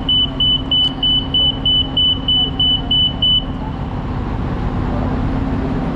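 A shuttle bus's electronic warning beeper sounds a high, even beep about three times a second and stops about three and a half seconds in, over the bus's engine idling steadily.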